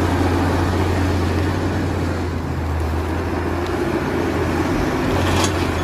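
Steady engine running, a low hum under a broad rushing noise, as of an excavator's engine.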